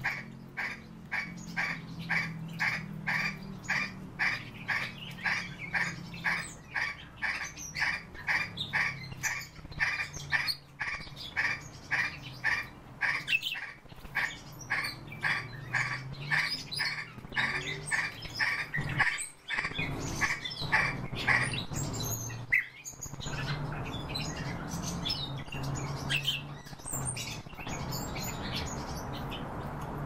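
Common starling calling: a long run of short, evenly repeated calls, about two a second. About two-thirds of the way through it breaks into a looser, more varied chatter with higher whistles.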